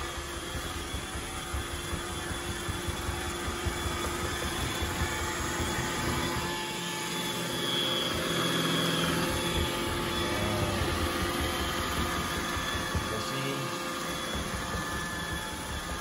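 iRobot Roomba 960 robot vacuum running on a hardwood floor: the steady whir of its vacuum motor and spinning brushes, a little louder for a few seconds around the middle.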